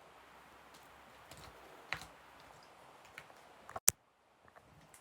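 Slime with foam beads being squished and poked by hand, giving scattered small clicks and pops, with one sharp loud click just before four seconds in.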